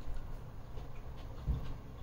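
Soft close-up sounds of a peri peri chicken ciabatta sandwich being torn apart by hand, with faint crackles and one dull thump about one and a half seconds in.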